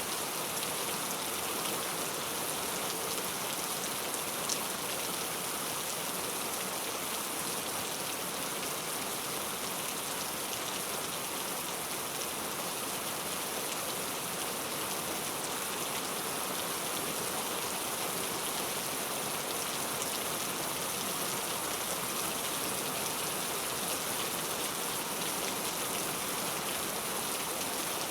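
Heavy rain falling in a steady, even hiss of many raindrops.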